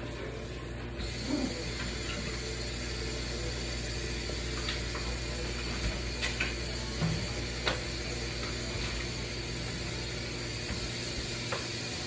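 Scattered clinks and knocks of dishes and utensils being handled at a kitchen sink, over a steady low hum and hiss.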